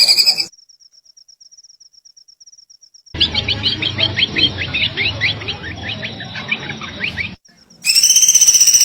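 Bird calls in spliced segments: a loud, fast, pulsing high trill cuts off within the first half second. A faint pulsing whistle follows, then a run of quick, downward-sweeping chirps from about three seconds in. The loud pulsing trill returns near the end.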